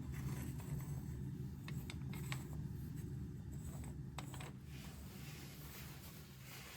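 Packed snow crunching and creaking in a few irregular scrapes over a low steady rumble; the crunches are sharpest about two and four seconds in, and the sound softens to a faint rustle near the end.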